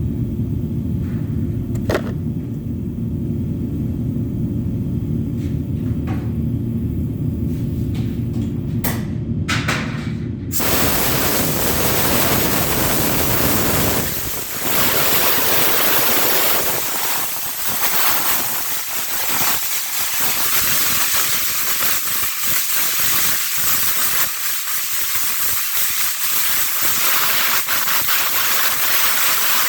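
A low steady rumble with a few clicks, then about ten seconds in a compressed-air spray gun opens up with a loud, steady hiss as primer is sprayed onto a car body repair.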